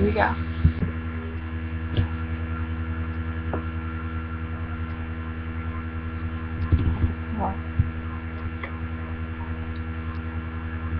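Steady electrical mains hum with a stack of overtones, picked up by a webcam's microphone, with a few faint clicks.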